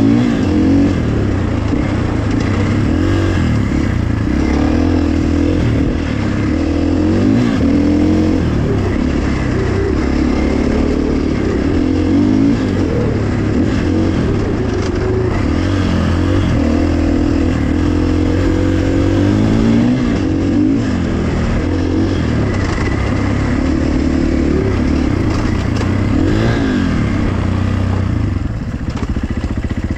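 Dirt bike engine under way, its pitch rising and falling again and again as the throttle is opened and eased off.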